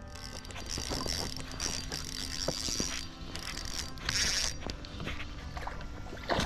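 A fishing reel cranked in two spells, a high mechanical whirring with small clicks, the second spell shorter.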